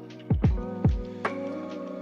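Background music: soft sustained chords over a beat with deep kick drum hits.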